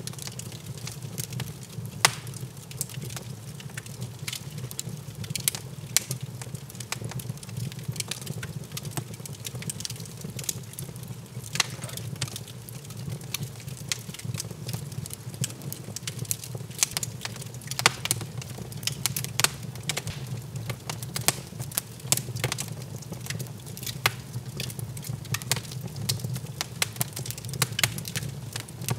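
Wood fire in an open fireplace crackling, with frequent irregular sharp pops and snaps over a steady low rumble.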